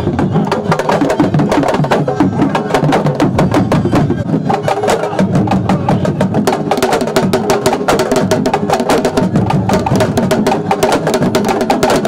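Senegalese sabar drums played fast with stick and bare hand: a dense, driving rhythm of sharp strokes.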